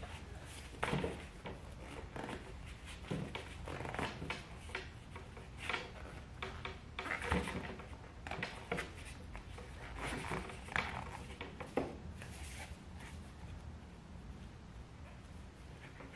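Handling noise of a dirt bike silencer being reassembled: irregular clicks, knocks and scrapes of the metal core, canister and end cap against each other and against gloved hands, as the packing-wrapped core is worked into the canister.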